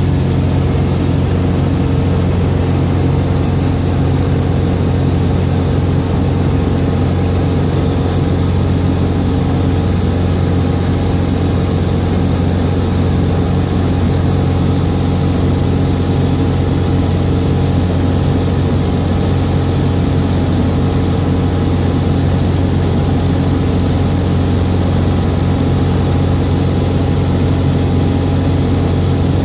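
Sonex light aircraft's engine and propeller droning steadily in cruise flight, heard from inside the canopied cockpit, with no change in pitch or power.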